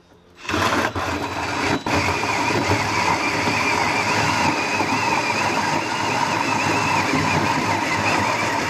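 Cordless drill driving a large hole saw through a vehicle's sheet-metal wing panel. The cutting starts about half a second in, breaks off briefly twice in the first two seconds, then runs as a steady loud grinding of saw teeth on metal.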